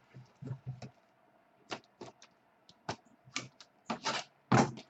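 Irregular clicks and taps of trading cards and their plastic holders being handled on a table, with a few longer scraping sounds near the end.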